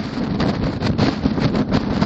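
Wind buffeting the microphone at highway speed: a loud, rumbling rush broken by rapid, irregular pops.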